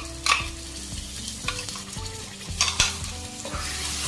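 Wooden spatula scraping ground onion-tomato paste out of a steel bowl into a hot pan of ghee and spices, with a couple of sharp scrapes and knocks. Near the end the paste starts to sizzle as it is stirred in, the sizzle growing louder.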